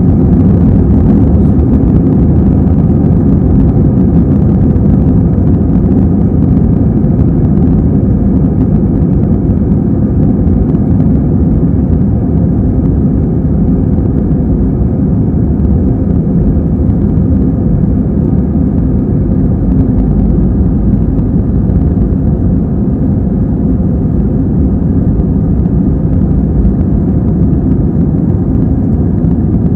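Airbus A320 jet engines at takeoff thrust with the undercarriage rumbling on the runway during the takeoff roll, heard from inside the passenger cabin as a loud, steady, deep roar.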